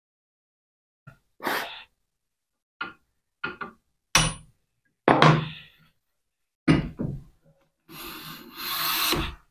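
A Lie-Nielsen No. 5 jack plane being set and tried: a few light taps, one a sharp metallic tap with a brief ring, as the plane is adjusted with a claw hammer, then short rasping strokes of the plane across a board, the longest near the end.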